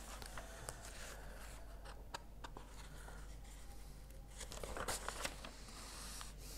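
Quiet small-room tone with a few faint clicks and a soft rustle about five seconds in.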